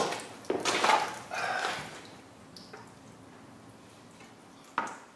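A few short knocks and scrapes in the first two seconds, then quiet with one more sharp knock near the end; no saw running.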